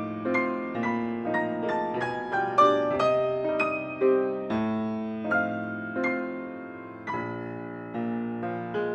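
Background piano music: single notes and chords struck one after another and left to ring, with a brief lull about seven seconds in.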